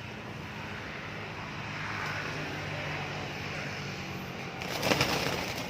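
A steady engine drone, as of a vehicle passing, swelling slightly a couple of seconds in. A short, loud flurry of sharp, rustling noise about five seconds in.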